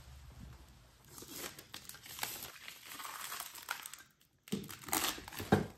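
Plastic wrapping and crumpled packing paper crinkling and rustling as they are handled and pulled out of a packed mold, with a short pause and then louder rustles and a light thump near the end.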